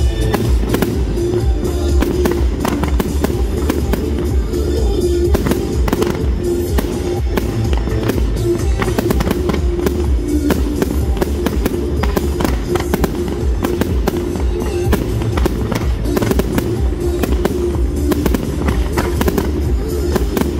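Fireworks of a musical fireworks display: many bangs and crackles in quick succession over music with a steady bass.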